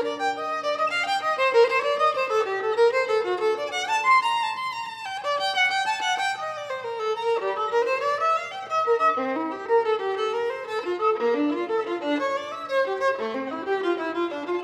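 Instrumental background music with a moving melody of quick notes.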